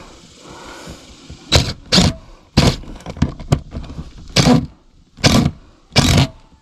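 DeWalt 20V cordless impact driver run in about six short trigger bursts, driving deck screws into wood to seat and tighten a camera mount.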